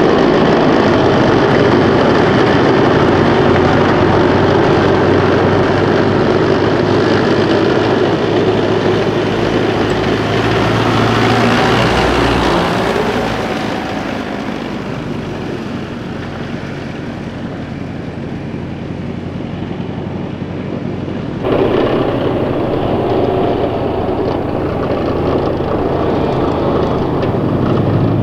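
CV90 tracked infantry fighting vehicle's diesel engine running and its tracks rolling as it drives past close by, loudest for the first dozen seconds and then fading. About two-thirds of the way through the sound jumps to approaching wheeled Piranha 5 armored vehicles, an engine note rising near the end.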